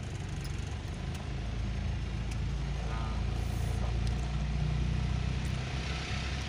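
Car engine and tyre noise heard from inside the cabin while driving: a steady low hum, with a hiss that swells near the end.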